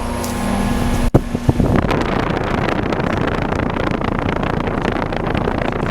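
Trane XR16 air conditioner's outdoor unit running: a steady hum of compressor and condenser fan. About a second in there is a brief dropout and a few knocks, after which a steady rushing noise takes over.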